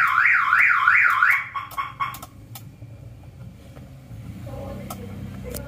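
Electronic car alarm siren in an Isuzu Panther, warbling up and down about two and a half times a second and cutting off about a second and a half in, followed by faint clicks over a low hum.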